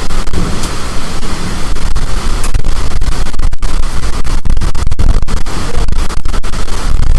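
Storm wind buffeting the microphone: a loud, distorted rush of noise, heaviest in the low end, that drops out for an instant many times.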